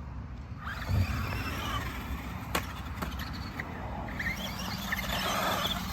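Small 1/18 scale brushed electric RC monster truck driving, with a low thump about a second in and a few sharp clicks.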